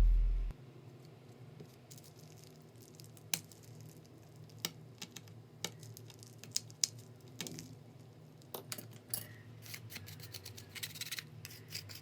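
Background music cuts off about half a second in. Then come faint scattered clicks, taps and small scrapes from hand tools and parts being handled on a smartphone under repair, with a busier run of small clicks near the end.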